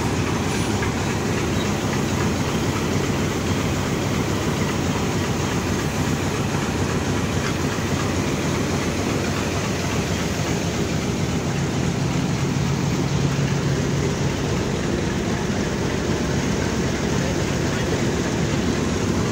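Pakistan Railways HBU-20 diesel locomotive's engine running steadily close by, a low hum under a constant rumble, as the locomotive is coupled onto passenger coaches.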